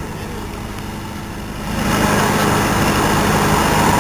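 Car engines running; the sound steps up sharply about two seconds in and then holds loud and steady.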